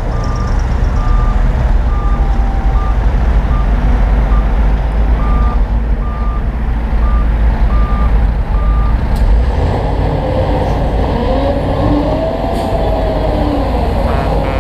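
Heavy construction machine's diesel engine running with a deep rumble while its reversing alarm beeps about once a second; the beeping stops about nine seconds in, and a wavering whine rises and falls near the end.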